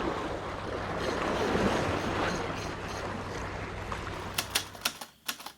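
Steady rushing of wind and sea water at sea. Near the end the rushing drops away and a quick run of sharp clicks starts.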